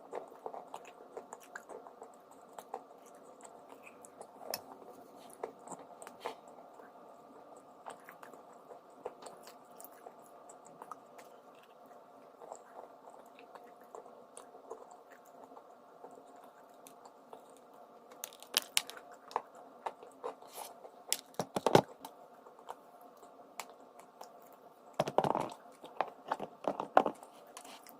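Close-miked chewing and crunching of a crumbly lump of eating chalk or clay-like mineral: soft crunches throughout, with louder bursts of crunching about two-thirds of the way in and again near the end.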